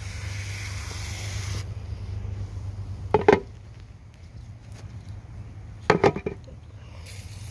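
Aerosol can of oven cleaner spraying in a steady hiss onto the diesel soot caked inside an intake manifold, stopping about a second and a half in. Two brief louder sounds follow, about three and six seconds in.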